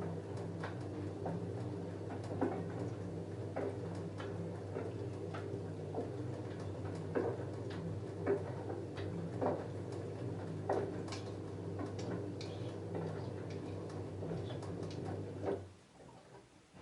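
LG F10A8HDS5 direct-drive front-loader tumbling a load of jeans in the wash: a steady motor hum with irregular light clicks and knocks about once a second, likely the jeans' buttons and zips hitting the drum. Near the end the motor stops suddenly as the drum pauses between tumbles.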